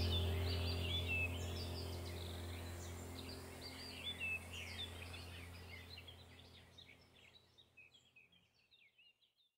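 Background track of many short bird chirps over a steady low drone, fading out steadily over the whole stretch.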